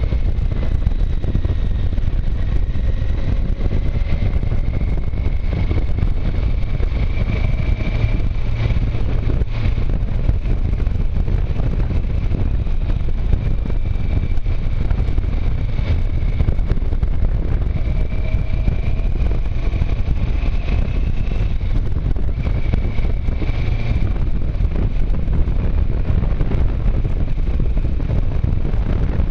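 Motorcycle riding at steady speed, a constant rumble of wind on the microphone mixed with the engine, and a faint high whine that wavers up and down.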